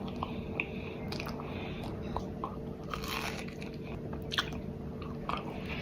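Close-miked chewing and biting of toast, a run of small irregular crunches and wet mouth clicks.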